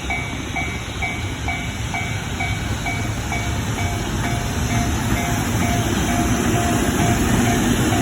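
Japanese level-crossing alarm ringing about twice a second, while a freight train of an EF65 electric locomotive and tank wagons rolls slowly past with a low rumble that slowly grows louder.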